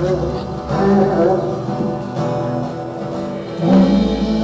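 Live band music: an acoustic guitar with a violin playing held melody notes over it, alongside other instruments. A louder held note comes in near the end.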